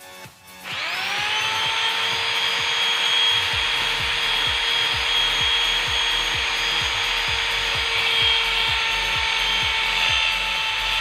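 Electric drill spinning up about half a second in, then running at a steady speed as a 5 mm bit drills into metal. This is the first pass in drilling out a stripped bolt thread, before the hole is opened to 7 mm and re-tapped.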